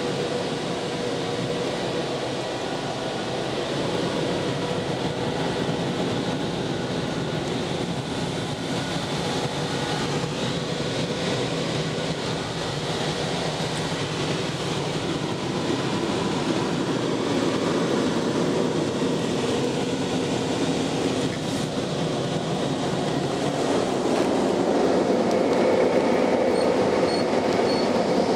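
California CK45 automatic car wash heard from inside the car: rotating polyethylene brushes scrubbing over the bodywork and water running over the glass, over a steady machine hum. It grows louder near the end.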